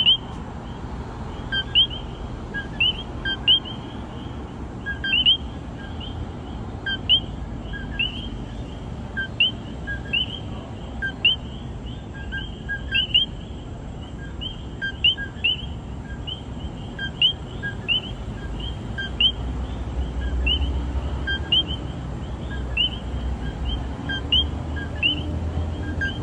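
Chorus of common coqui tree frogs calling: many overlapping two-note "co-QUI" calls, each a short low note followed by a higher rising chirp, repeating every fraction of a second, over a steady low background rumble.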